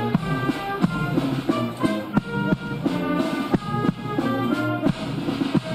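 Band music: brass and other instruments playing held notes over regular drum strokes.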